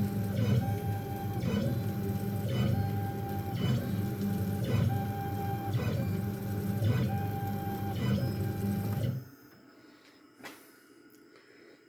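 Onefinity CNC machine running: a steady hum with a short motor whine repeating about once a second as it moves. It cuts off suddenly about nine seconds in, leaving only a faint click or two.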